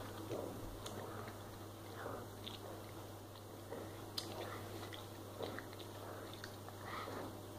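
A child chewing a jelly bean close to the microphone: soft, irregular chewing clicks.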